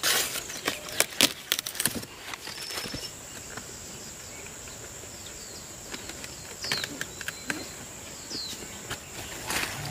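Leafy greens being picked by hand: a flurry of crisp snaps and leaf rustling at the start and again near the end. In the quieter middle, a few short falling bird chirps over a thin steady high tone.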